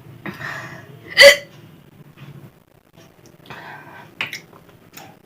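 A person hiccuping with hiccups that will not stop after a meal heavy with chillies. One loud, sharp hiccup comes about a second in, with breathy breaths before it and fainter catches near the end.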